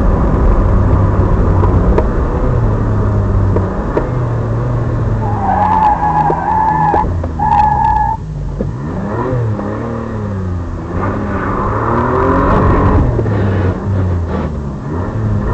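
Alpine A310's 2.7-litre V6 engine at full rally pace, its revs rising and falling through gear changes. About halfway through, the tyres squeal in two stretches as the car brakes and turns into a tight corner, then the engine revs up again coming out of it.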